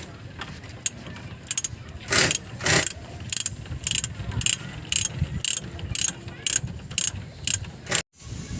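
Ratchet wrench clicking in quick, even strokes, about three a second, until it cuts off abruptly near the end.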